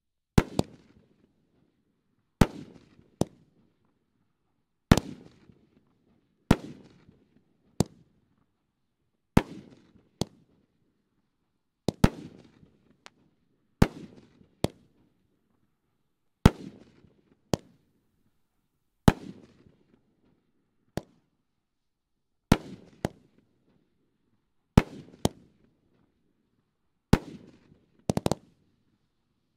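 500-gram Pyro Planet Gold Fingers firework cake firing shot after shot. About a dozen loud shell breaks come roughly every two seconds, most followed by a fainter second crack, each trailing off in a short echoing rumble.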